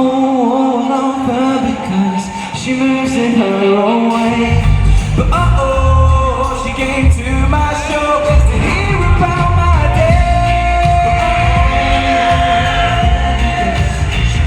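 Pop song performed live with a lead vocal over a backing track, heard in a large hall. The low bass drops out for about the first four seconds, then comes back in, and the song runs on at full level.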